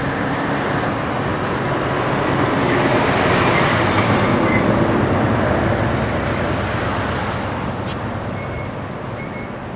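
Road traffic passing: a steady rushing noise that swells to its loudest about three to four seconds in, then slowly fades.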